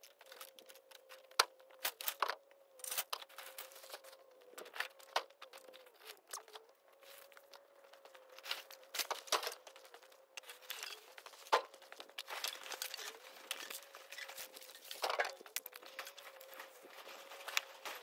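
Plastic sheeting and construction trash crinkling and rustling as it is gathered up by hand, with scattered sharp clicks and knocks, over a faint steady hum.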